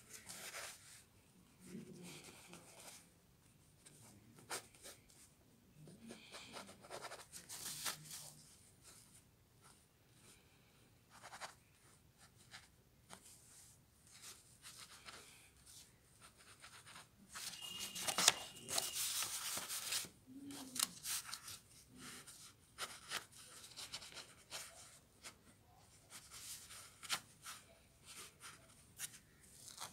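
Pen nib scratching across paper in short, irregular strokes while a sketch is inked, faint, with a denser and louder run of strokes about two-thirds of the way through.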